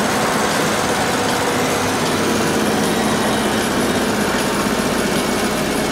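Mercedes-Benz 208 D van under way: a steady diesel engine drone with an even rush of road and wind noise.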